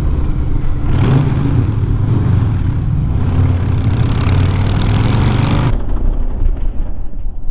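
Harley-Davidson Low Rider S Milwaukee-Eight 114 V-twin running steadily at about 50 mph, with wind rush. From about a second in, the engine and wind grow fuller and hissier in a concrete tunnel, then turn duller about two thirds of the way through.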